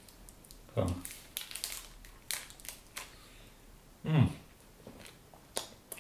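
A chocolate bar being bitten and chewed close to the microphone, its wrapper crinkling, as a run of sharp crackly clicks between one and three seconds in.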